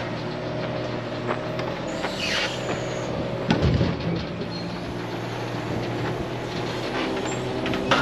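A large engine idling steadily, with a brief falling hiss about two seconds in and a louder low burst just before four seconds.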